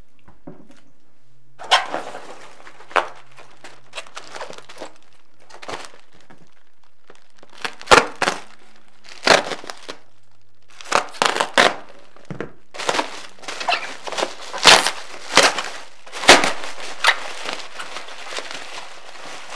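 Plastic bubble wrap being handled and pulled open by hand, crinkling and crackling in irregular bursts, sparse at first and busier over the second half.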